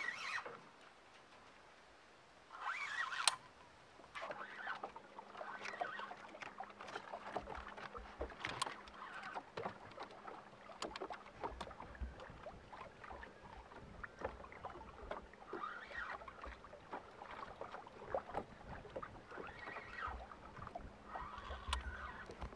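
Water lapping and slapping against a small boat's hull, with scattered irregular knocks and clicks over a faint steady hum and low rumble. A brief rush of noise comes about three seconds in.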